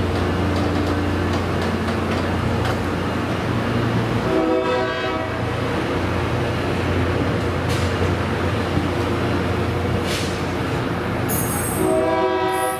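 Diesel train running past with a steady low rumble, sounding its horn twice: a short blast about four and a half seconds in and another near the end.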